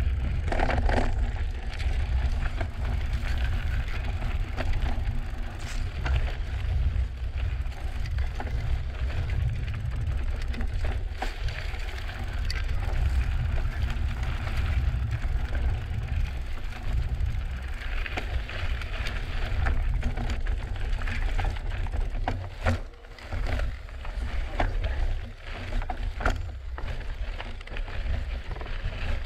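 Drop-bar mountain bike riding a rocky dirt trail: tyres crunching over gravel and rock, with quick knocks and rattles from the bike over bumps. A heavy low rumble of wind on the microphone runs under it, and it goes briefly quieter twice near the end.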